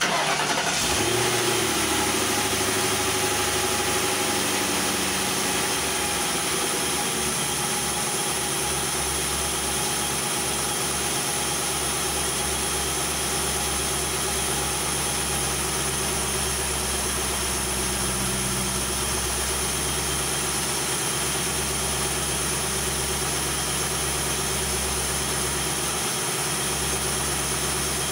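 2001 Ford Crown Victoria's 4.6-litre V8 starting up, its revs flaring briefly before settling to a steady idle, running after its broken timing chain guides were replaced.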